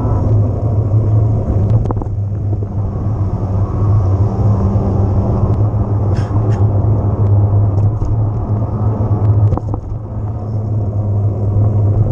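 Riding noise from an electric mountain bike under way: a steady low hum with rumble, broken by a few sharp knocks or rattles.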